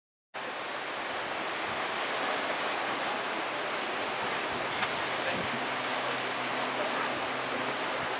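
Steady outdoor hiss of sea surf and wind, starting suddenly about a third of a second in. From about halfway a faint low hum comes in under it, the outboard motorboat towing the banana boat.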